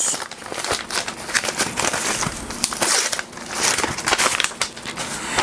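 A package's wrapping being torn open and crumpled by hand: a dense, irregular run of crackles and rustles.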